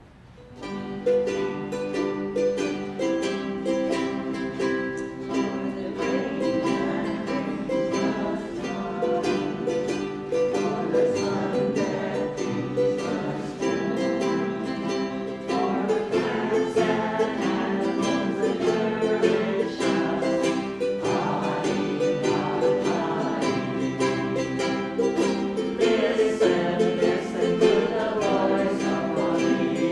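Ukulele music starting about a second in and playing on without a break.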